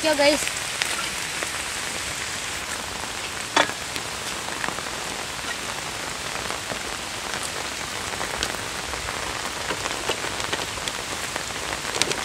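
Steady rain falling, with a single sharp knock about three and a half seconds in.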